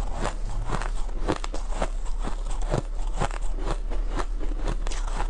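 Ice being bitten and crunched close to the microphone: sharp crunches and cracks, about two a second, at an uneven pace.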